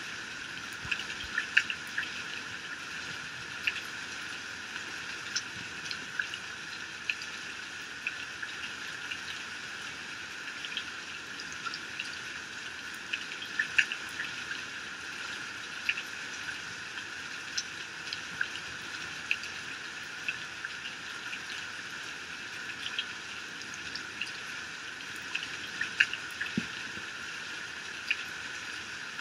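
Heavy rain falling and pouring off a roof, a steady hiss with frequent sharp drop hits scattered through it.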